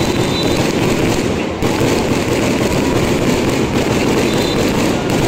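Aerial fireworks going off in rapid succession, their bursts running together into one continuous loud crackling noise with no clear separate bangs.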